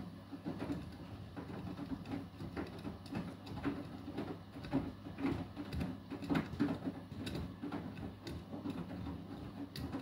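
Beko WTK104121W front-loading washing machine turning its drum on an Eco 40 wash: a steady low motor hum with irregular splashes and soft knocks as the wet load tumbles.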